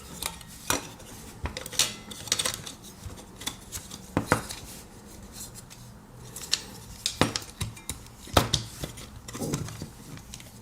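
Irregular small clicks and taps of a TV-box remote control's hard plastic casing and circuit board being handled and fitted back together, a sharp click every second or so.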